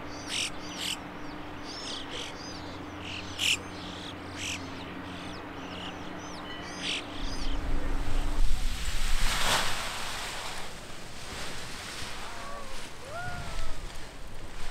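Small birds chirping with many short, high calls for the first seven seconds or so. Then wind buffets the microphone, with a strong gust a little past the middle, and a few lower, gliding bird calls come near the end.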